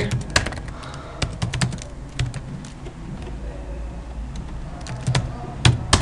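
Computer keyboard keys clicking as someone types, a quick run of keystrokes in the first couple of seconds, a pause, then a few more keystrokes near the end.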